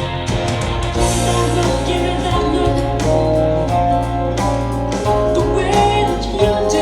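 A recorded pop song playing, with guitars, bass, drums and a held sung voice between the lyric lines.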